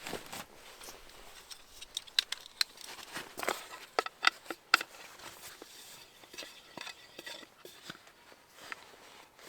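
Scattered small clicks, taps and rustling from things being handled, sharpest and most frequent between about two and five seconds in.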